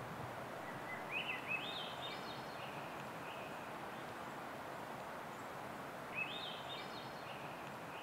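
Steady outdoor background noise with a songbird singing twice, each time a short phrase of notes that step upward in pitch: once about a second in and again about six seconds in.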